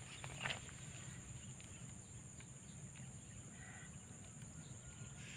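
Quiet outdoor ambience: a steady high-pitched hum with a low rumble underneath, a few soft handling clicks about half a second in, and a faint short bird-like call a little past the middle.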